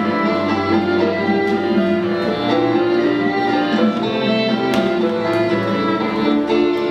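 Instrumental music with violin and guitar, bowed notes held over a low sustained bass.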